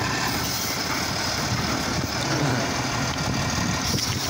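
Automated side-loader garbage truck running, its engine and hydraulics working as the mechanical side arm lifts a trash cart up to dump it into the hopper.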